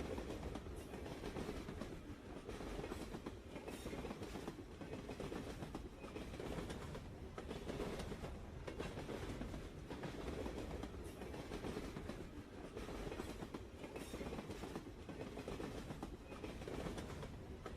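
Train wheels running over the rails: a steady rumble with the repeated clickety-clack of wheels striking rail joints.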